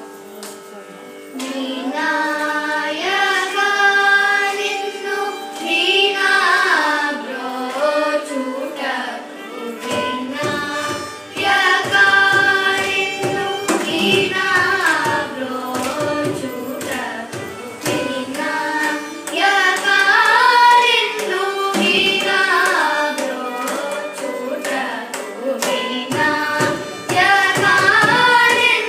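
Children singing a Carnatic song together over a steady drone, with violin accompaniment. A mridangam comes in with a pattern of drum strokes about ten seconds in.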